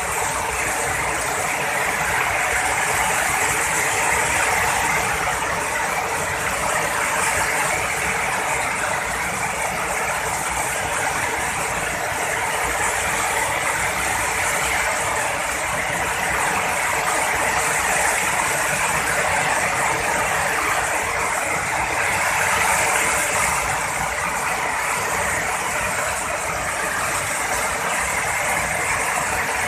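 Heavy rain pouring steadily: a dense, even hiss that swells a little now and then.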